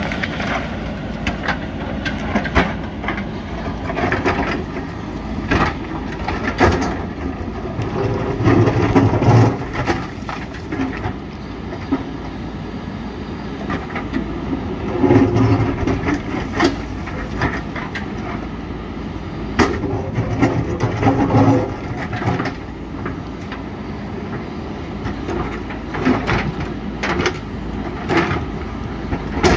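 JCB 3DX backhoe loader's diesel engine working under load, swelling louder several times, while the bucket knocks and scrapes against rock with repeated sharp clanks.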